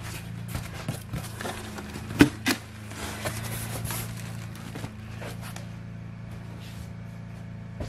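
Cardboard box flaps being pulled open and folded back by hand: rustling and scraping of corrugated cardboard with a few sharp knocks, the loudest two close together a little over two seconds in, then the handling dies down. A steady low hum runs underneath.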